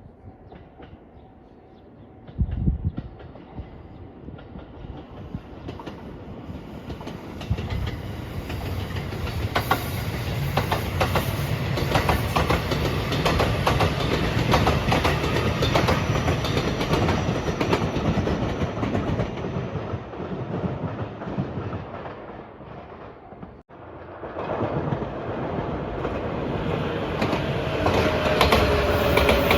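A train passing over a level crossing: wheel-on-rail running noise with a clickety-clack of rail joints, building over several seconds to a loud steady pass. The sound cuts off suddenly about two-thirds of the way through, then a second train's running noise rises again.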